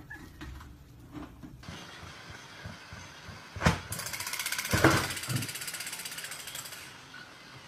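A battery-powered crawling toy soldier's geared motor ticking rapidly and evenly for about three seconds. Just before it starts there is a sharp knock, and a thump comes partway through.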